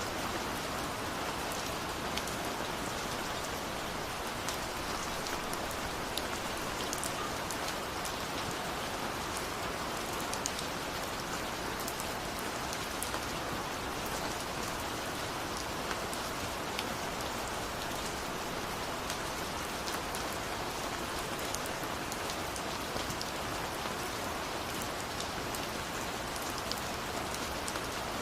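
Steady rain falling, an even hiss with many small drop ticks spread through it.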